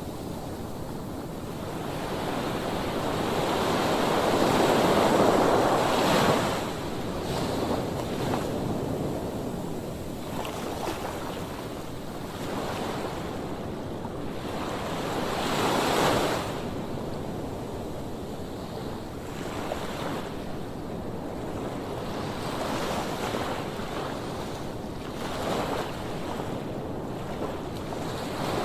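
Heavy surf breaking on a sandy beach: a steady wash of waves that swells into a big crash about five seconds in and another about sixteen seconds in, with a smaller one near the end.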